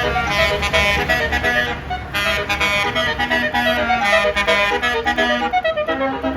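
Basuri melody air horn on a bus playing a quick tune of many short reedy notes, with a short break about two seconds in, over the low running of the bus engine.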